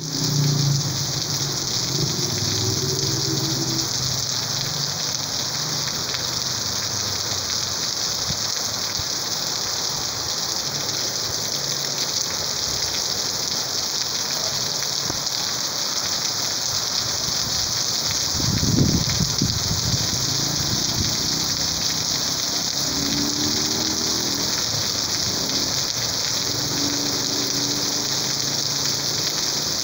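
Heavy rain falling on a paved street and on puddles, a steady dense hiss of drops with water running. About two-thirds of the way through there is a brief louder rush.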